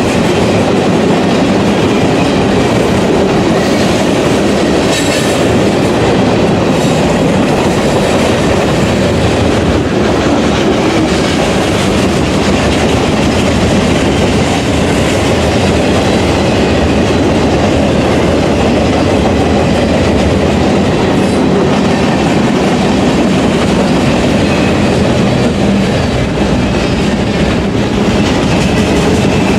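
CSX freight train passing, a steady, loud run of freight cars rolling by on the track.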